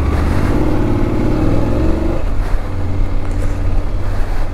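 BMW adventure motorcycle engine accelerating from low speed, heard from the rider's seat. Its pitch rises for about two seconds, then drops and runs steady.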